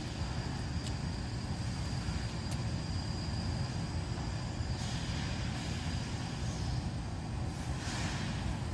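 Wood stove fire burning steadily in a top-lit firebox during gas (secondary) combustion: a continuous low rumble with a few faint crackles and soft whooshes.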